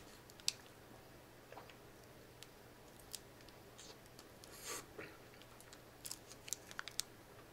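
Faint eating sounds as a Snickers ice cream bar (chocolate-coated, with peanuts and caramel) is bitten and chewed: scattered soft clicks and crunches, with a few in quick succession about six to seven seconds in.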